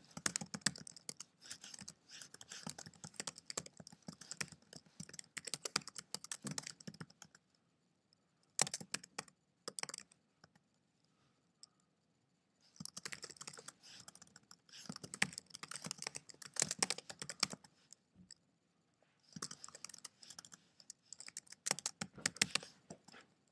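Fast typing on a computer keyboard, keystrokes coming in four runs separated by short pauses.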